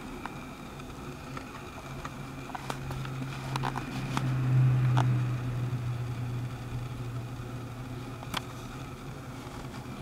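A low mechanical hum that swells and fades over several seconds, loudest about halfway through, with a few faint clicks scattered through it.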